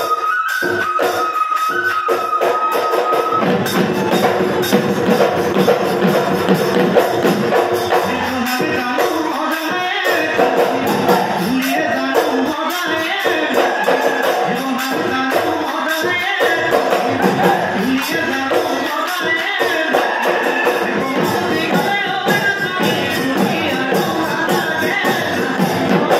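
Live Bihu music: several dhol drums beaten together in a fast, dense rhythm with jingling cymbals and singing. A long steady high note is held over the drums for the first few seconds.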